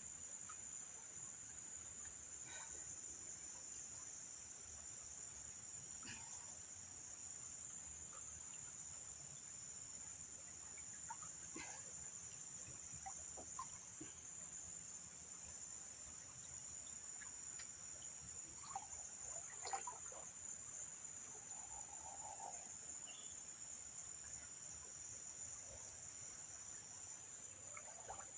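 A high-pitched chorus of insects, crickets or cicadas, shrilling steadily and pulsing at an even beat of about once every second and a half, with a few faint scattered ticks and short calls beneath it.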